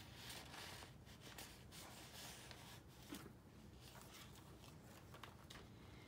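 Near silence, with faint rustling and soft brushing of paper pages and tags being turned and handled in a handmade paper junk journal, mostly in the first half.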